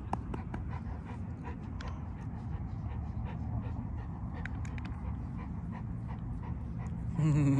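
Dog panting steadily, with scattered small clicks.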